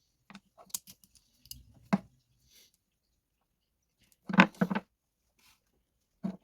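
Garden shears being handled: scattered sharp metal clicks and clacks with silent gaps, the loudest a double clack about four and a half seconds in.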